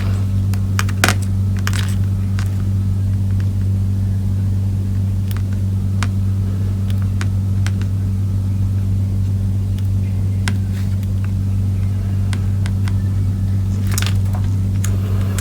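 Steady low electrical hum from the workbench, with scattered faint light clicks of small tools on the circuit board during soldering.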